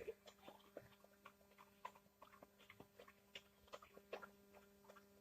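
Near silence: faint, irregular clicks and ticks, a few every second, over a steady electrical hum.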